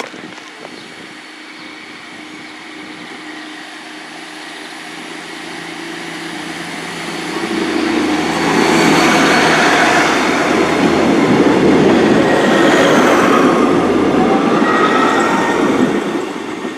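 A two-car set of diesel multiple units, a Class 153 and a Class 150 Sprinter, pulling away on their underfloor diesel engines. The engine note holds steady, then the train grows much louder from about seven seconds in as it passes close, with rail and wheel noise and a few rising and falling high tones, and eases off at the very end.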